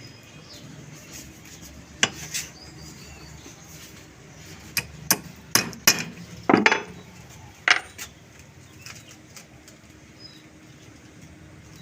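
Small metal parts of a brass lever lock tapped and clicked while its levers are set to a new key: about eight sharp, irregular taps, with one longer, heavier knock near the middle.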